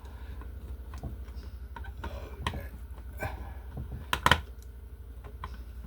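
Scattered light clicks and taps of a screwdriver and hands working at an electrical box in the wall, with two sharper clicks about four seconds in. A steady low hum runs underneath.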